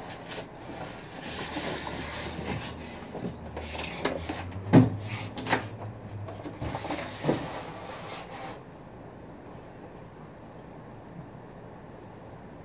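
Polystyrene foam packing being pulled and scraped out of a cardboard box: rubbing and scraping with a few sharp knocks, the loudest about five seconds in. The handling stops at around eight and a half seconds.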